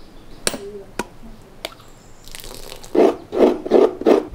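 A few sharp clicks, then from about three seconds in, coconut being scraped on a metal hand coconut scraper: loud, even rasping strokes, about three a second.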